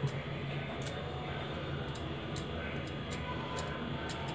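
Metal spoon spreading green chutney over a slice of bread on a wooden board, with soft scrapes and scattered small clicks and taps of the spoon against the board and the chutney bowl.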